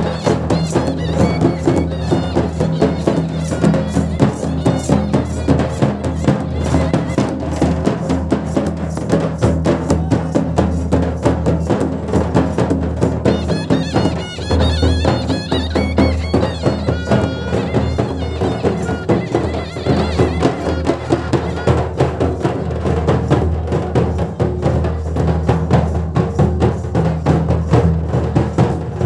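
A traditional wedding band of large stick-beaten folk drums playing a fast, dense beat, with a shehnai playing a wavering melody over it, clearest in the middle.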